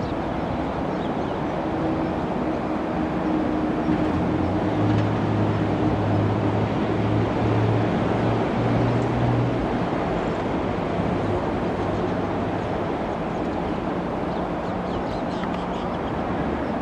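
SS8 electric locomotive approaching, a steady rumble with a low hum that comes in about two seconds in and fades out around ten seconds in.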